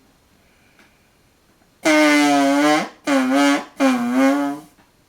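A man burping loudly three times in a row: one long pitched burp lasting about a second, then two shorter ones, the last sagging a little in pitch.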